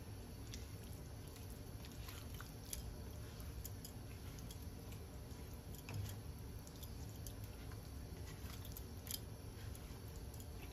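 Silicone spatula stirring and folding boiled lentils into cooked spinach masala in a nonstick pan: faint, wet squishing with scattered light ticks against the pan, over a low steady hum.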